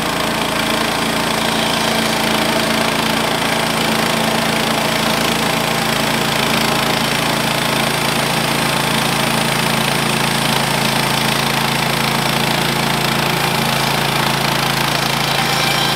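Woodland Mills HM130 portable bandsaw mill running steadily, its gas engine driving the band blade through a pine driftwood log.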